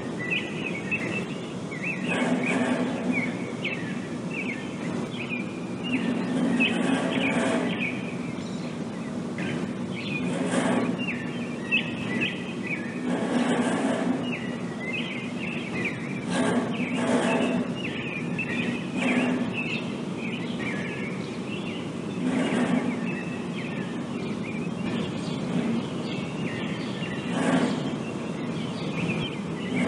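Refrigeration units on parked refrigerated trucks running with a steady low hum, broken every few seconds by loud impulsive bangs, a dozen or so in all, that stand well above the hum. Small birds chirp over it.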